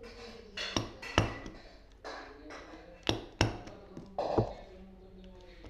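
Hand stapler driving staples into paper: five sharp clicks, some coming in quick pairs.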